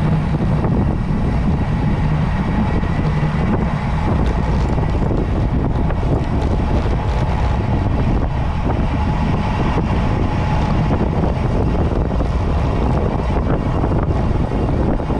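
Steady wind rushing over the microphone of a camera on a road bike ridden at speed.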